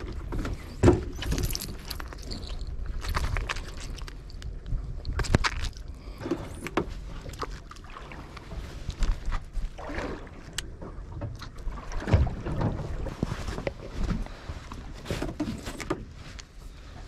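Wind rumbling on the microphone and water moving against a small boat's hull, with irregular knocks and rustles as hands handle a fishing lure, line and a small fish.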